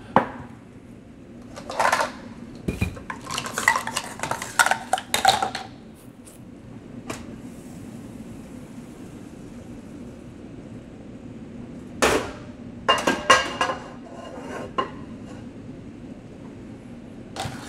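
Kitchenware clattering and clinking in short bouts, as utensils and a plastic measuring cup are handled on a countertop. The bouts come about two seconds in, around four to five seconds in, and again about twelve seconds in.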